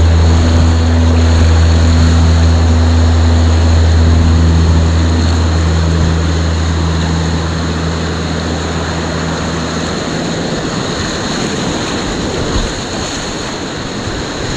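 Rushing whitewater rapids, with a held low note from heavy rock music ringing on and fading out about ten seconds in, leaving only the steady rush of the water.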